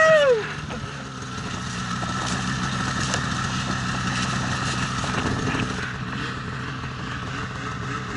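Snowmobile's 850 two-stroke engine running at steady, moderate revs in deep powder. Right at the start there is a short, loud, high tone that rises and falls.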